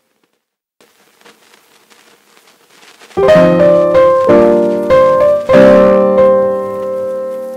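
Piano music: after a near-silent start with a few faint ticks, sustained piano chords come in about three seconds in, with new chords struck twice more over the next couple of seconds and left ringing.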